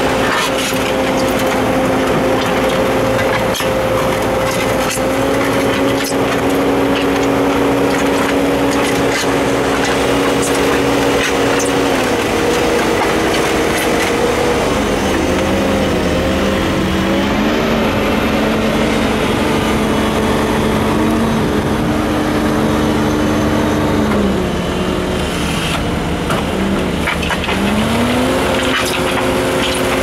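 Diesel engine and hydraulics of a machine working a hydraulic concrete mixer bucket, running steadily with a pitched drone. The pitch drops twice and comes back up as the engine speed or hydraulic load changes. Scattered knocks come from the aggregate and concrete tumbling in the turning drum.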